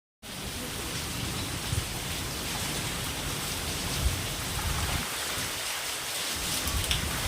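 Steady hiss of rain falling, starting abruptly a moment in, with a few scattered drop ticks.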